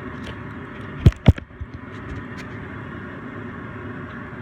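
Two sharp knocks in quick succession about a second in, followed by a few faint ticks, over a steady background rumble.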